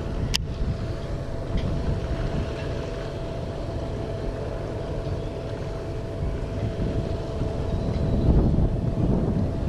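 Wind buffeting the camera microphone, with a faint steady hum underneath and a single sharp click just after the start.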